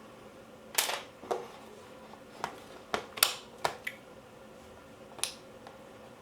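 Parts of a Cyma AK airsoft rifle being handled during disassembly: about eight irregular clicks and knocks, a couple of them with a short scrape, over a faint steady hum.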